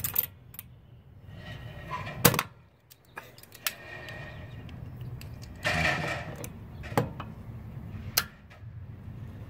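Metal clicks and scraping as locking pliers are worked on a one-way screw head in a steel security-door hinge: the pliers' jaws are adjusted and clamped, then the screw is turned. One sharp click a little over two seconds in, and a longer scrape around six seconds.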